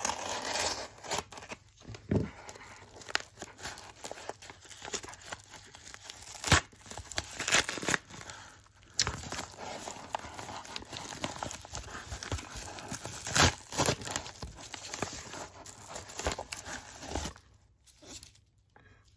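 A yellow padded mailer being torn open and crinkled by hands, which then dig inside and pull out a taped paper sleeve: irregular tearing and crackling of plastic and paper that stops shortly before the end.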